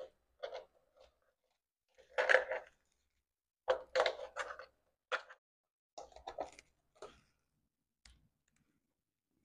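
Plastic clicks and rattles from handling and fitting parts on a ring light and its stand, in short irregular bursts, the loudest about two and four seconds in.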